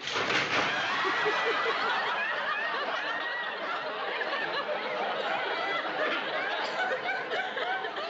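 Studio audience laughing, breaking out suddenly and loudly and going on as a dense, many-voiced laugh.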